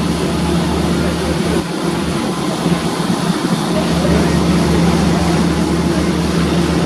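Propeller aircraft engine running steadily, a deep even drone over a heavy rush of noise that dips briefly about two seconds in.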